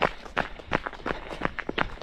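Running footsteps at a steady pace of about three strides a second.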